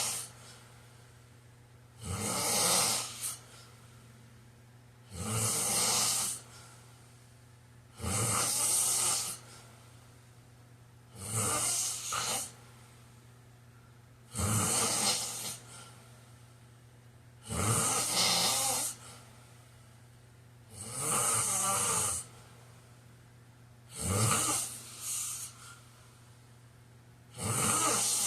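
A man snoring in a steady rhythm, one snore about every three seconds, each lasting about a second.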